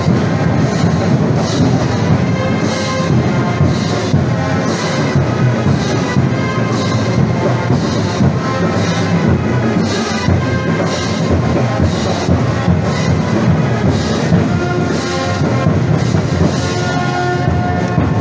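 Street band of brass and percussion playing a slow parade march, with brass melody over a steady beat of drums and cymbals, accompanying a marching festival squad.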